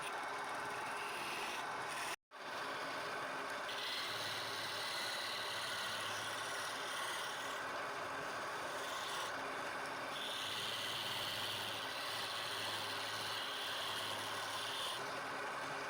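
Wood being turned on a lathe: a steady run of scraping with two long passes of harsher cutting, one about four seconds in and one about ten seconds in, as a turning tool works the spinning wood. A brief dropout comes about two seconds in.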